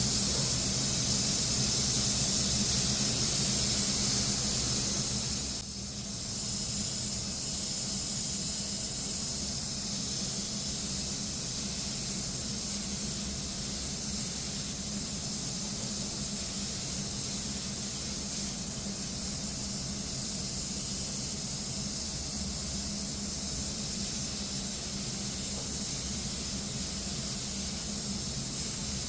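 Compressed-air spray gun hissing steadily while spraying Cerakote onto rifle barrels, with a brief break about six seconds in. A low steady hum runs underneath.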